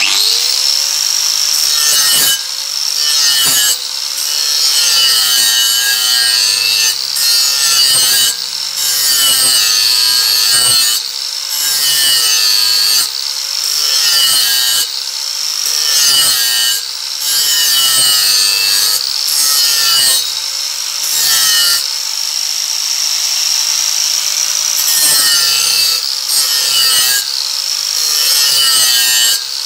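Angle grinder with a flap disc sharpening the edge of a steel mower blade held in a vise. The grinder switches on at the start and its whine rises to speed, then over the rasp of the grinding it sags and recovers about once every one to two seconds as the disc is pressed and worked along the edge in strokes.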